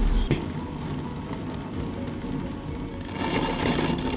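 Tabletop wet grinder running steadily: its two stone rollers turn in the steel drum, grinding soaked boiled rice with milk and sugar into a thick batter, with a steady motor hum and rolling rattle.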